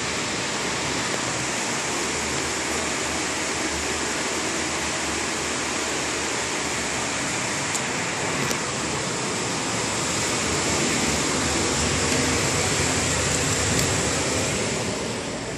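Steady rushing air noise of fans running, a little louder about ten seconds in and easing off near the end, with a couple of faint ticks.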